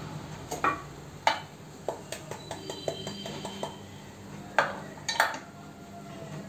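Stainless steel idli stand plates clinking and clanking against each other and the central rod as they are lifted off and stacked back. Four sharp clanks stand out, two in the first second or so and two about five seconds in, with a run of lighter metal ticks between them; some strikes ring briefly.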